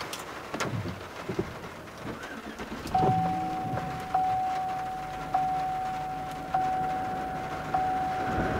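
A vehicle's electronic warning chime in the truck cab: a single clear tone that starts about three seconds in and dings again about every 1.2 seconds, five times, each ding fading before the next. A few faint knocks come before it.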